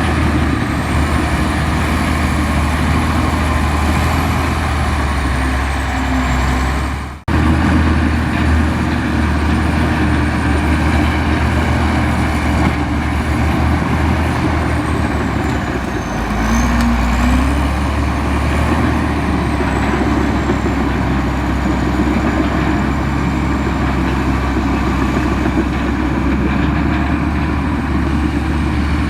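Komatsu bulldozer's diesel engine running steadily under load, a deep drone with a thin high whine above it that wanders in pitch. The sound drops out abruptly for a moment about seven seconds in.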